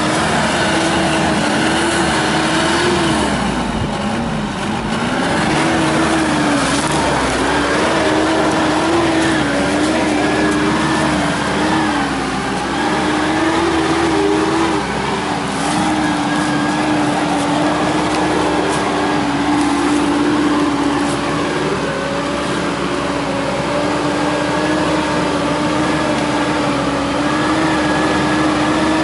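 Mitsubishi Pajero's engine running under load off-road, its revs holding fairly steady with small rises and falls and a brief dip about four seconds in.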